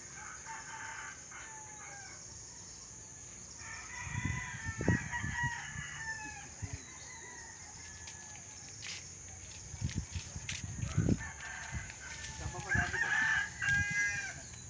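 Roosters crowing: long crows about four seconds in and again near the end, with a fainter one at the start. A few dull thumps fall in between.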